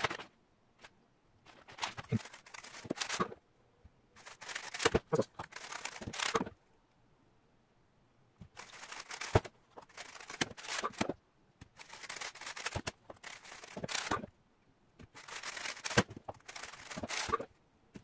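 GAN 356 XS 3x3 speedcube being turned very fast: about five runs of rapid plastic clicking and clattering, each a second or two long, with short quiet pauses between them.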